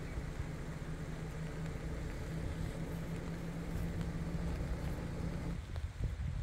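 Steady rain hiss under a low, even motor hum, like an engine running at a steady speed; the hum cuts off suddenly about five and a half seconds in, leaving the rain.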